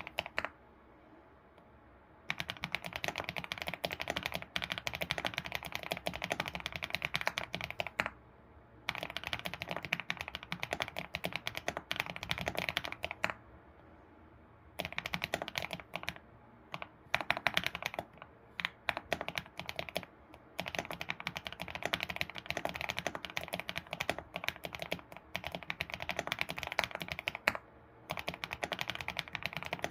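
Typing on an ABKO computer keyboard: rapid runs of key clicks in bursts of a few seconds, broken by short pauses.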